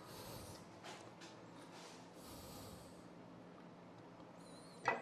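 Faint breathing and soft handling noise in a quiet workshop, with a sharp knock just before the end.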